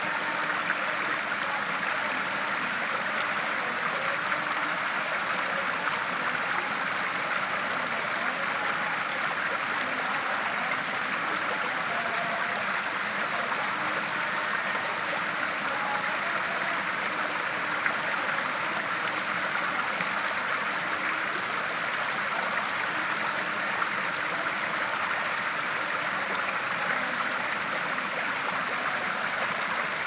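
Shallow stream water rushing and splashing over a rock ledge, a steady, unbroken rush.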